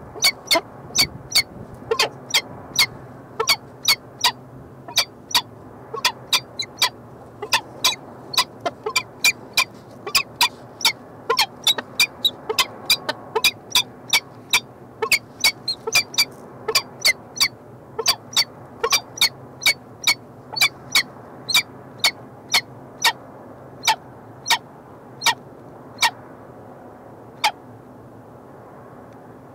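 Peregrine falcons at the nest scrape giving short, sharp calls over and over, about one to two a second: the chupping that goes with the pair's courtship bowing display. The calls thin out near the end.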